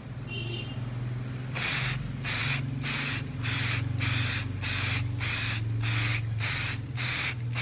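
Aerosol can of rubber paint spraying in short bursts, about eleven quick sprays a little over half a second apart, starting about a second and a half in.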